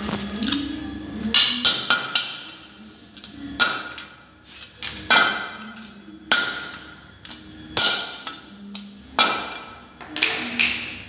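Hammer striking a tool set on the valve spring retainers of a Dodge Nitro cylinder head. It gives a series of sharp metallic knocks, about one every one to one and a half seconds, each with a short ring: the valve keepers being seated after the valves are refitted.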